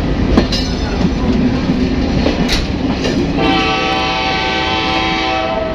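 Canadian-built diesel shunting locomotive hauling railway coaches: a low rumble with occasional clanks. About three and a half seconds in, a train horn sounds one steady blast of over two seconds.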